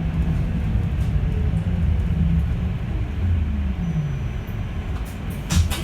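Yutong E12 electric bus on the move: a low rumble under the whine of its permanent-magnet traction motor, which falls in pitch about three and a half seconds in as the bus slows. A brief sharp noise comes near the end.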